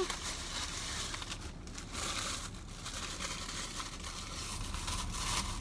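Thin plastic deli bag crinkling and rustling as it is handled and pulled open, in irregular crackles with two short pauses.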